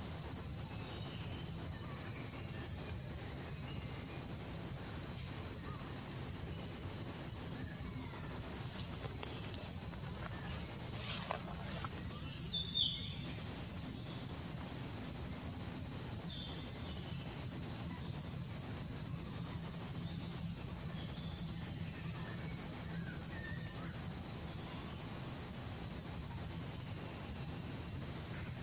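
Insects droning steadily at one high pitch. About halfway through, a brief louder call falls in pitch and stands out above the drone.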